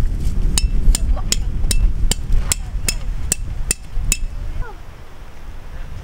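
Hammer driving a metal tent stake into gravelly ground: about ten evenly paced, ringing strikes, roughly two and a half a second, stopping about four seconds in, over a steady low rumble.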